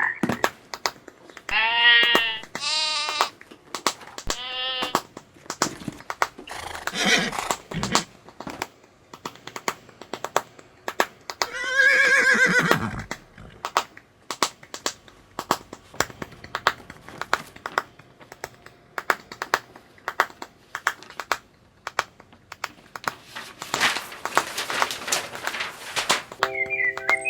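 Animal calls: a few short cries in the first seconds and one longer cry that rises and falls about twelve seconds in, neigh- or bleat-like, over a steady run of sharp clicks and taps.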